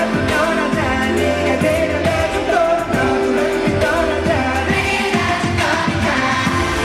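K-pop song with a male lead vocal singing over a steady drum beat.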